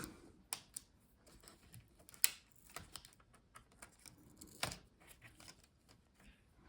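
Scattered small plastic clicks and taps as the touchpad's ribbon-cable connector is unlatched and its cable pulled free inside the opened laptop. One sharp click comes about two seconds in and a louder cluster of taps a little past halfway.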